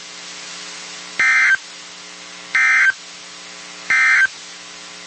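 Three short bursts of EAS SAME digital data tones from NOAA Weather Radio, evenly spaced about 1.3 seconds apart: the end-of-message code that closes the tornado warning. A steady electrical hum runs underneath.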